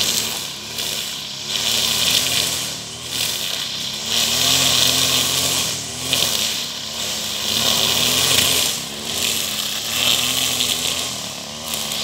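Petrol brush cutter running at cutting speed, its engine note and the hiss of the cutting line swelling and easing every couple of seconds as it sweeps through the grass.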